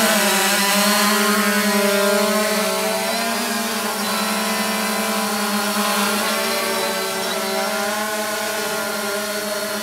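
Multirotor drone's electric motors and propellers hovering: a steady buzzing hum made of several pitches that waver slightly as the motors adjust.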